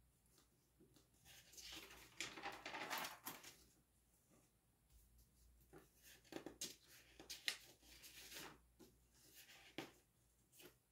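Paper pages of a spiral-bound notebook being turned, a rustle about two seconds in, followed by several short, sharp paper sounds as the hand handles the pages.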